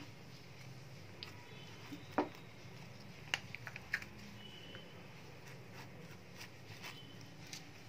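Scattered short clicks and crinkles of a plastic mayonnaise squeeze pouch being handled and squeezed over toast in a pan, the sharpest a little after two seconds in and again between three and four seconds in, over a faint steady low hum.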